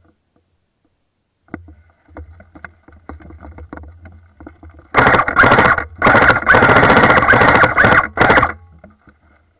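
Airsoft rifle firing on full auto, heard through the camera mounted on its barrel: a short burst of rapid mechanical rattling with a motor whine, then a longer burst, after a few seconds of faint rustling.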